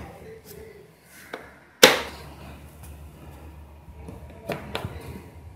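Plastic latches on a hard total station carrying case being unclipped: one sharp, loud snap a little under two seconds in, with a lighter click before it and two lighter clicks near the end.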